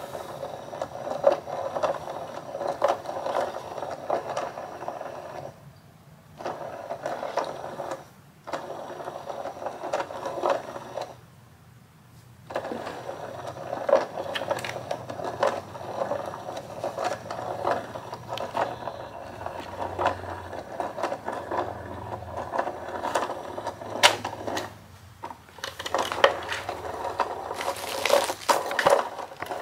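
Inkzoo Whack-A-Mole electronic cat toy running: its small motor whirring and clicking as the feather wand pops in and out of the holes, fairly quiet. It stops briefly several times and starts again, at random.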